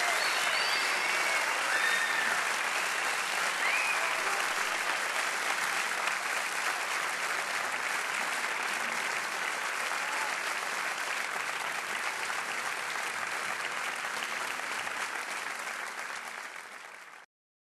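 Crowd applauding, a dense steady clapping with a few short high-pitched calls over it in the first seconds. It fades near the end, then cuts off abruptly.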